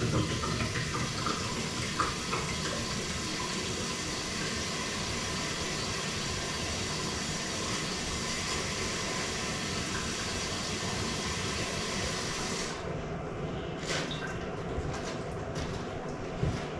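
Water and air rushing steadily from an opened tap as the air is bled out of newly crimped water supply lines. The rush stops abruptly about 13 seconds in, followed by a few light knocks.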